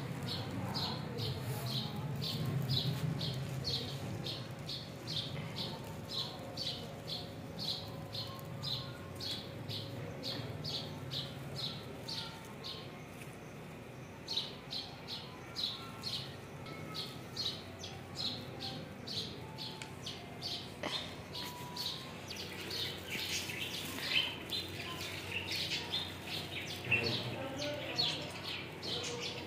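A small bird chirping over and over, two to three short high chirps a second, breaking off for a moment near the middle; in the last several seconds more chirping overlaps it and grows busier.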